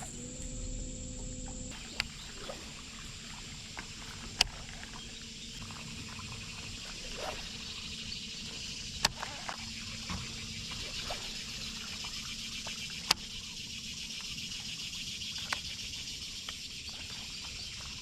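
A steady, high-pitched chorus of insects, with a handful of sharp clicks scattered through.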